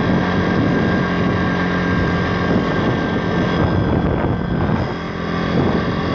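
A YX 160cc four-stroke pit bike engine running steadily under way, easing off briefly about five seconds in.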